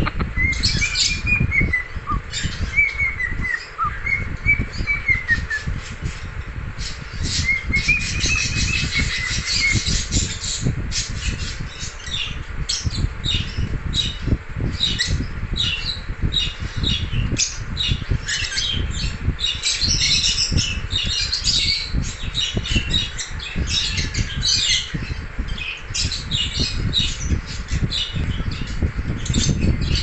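Cockatiel singing: wavering whistled phrases that rise and fall for the first ten seconds or so, then a long run of short, rapid chirps and squawks, over a steady low rumble.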